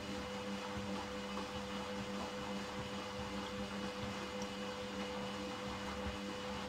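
Candy Grandó Comfort front-loading washing machine turning its drum during a delicates 30 °C wash cycle. The drum motor gives a steady hum with two held tones over a rushing noise.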